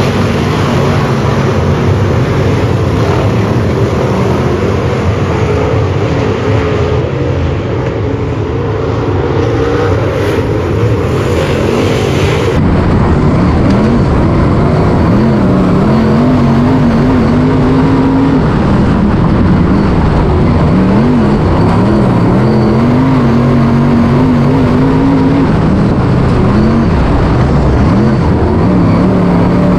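Dirt late model race cars' V8 engines running hard around the dirt track, several cars together. About twelve seconds in this gives way to the sound from inside one late model, its engine pitch rising on the throttle down the straights and falling as it lifts into the turns, over and over.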